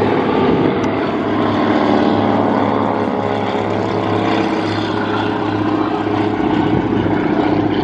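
Piston engines of a North American T-6 Texan and a second propeller trainer flying past together in close formation: a loud, steady propeller drone whose pitch dips slightly as they pass.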